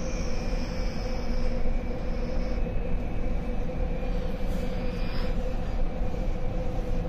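Steady rumbling hum of an underground subway station, with a few held tones and a faint high whine that stops about two and a half seconds in.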